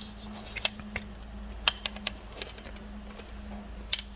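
Scattered small metallic clicks and ticks of needle-nose pliers gripping and turning the threaded adjusting pin on a Mercedes W140 soft-close pump, over a steady low hum.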